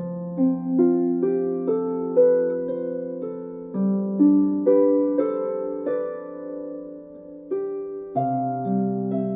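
Background music: gentle plucked harp notes in slow broken chords, a new note about every half second, with fuller chords struck near the end.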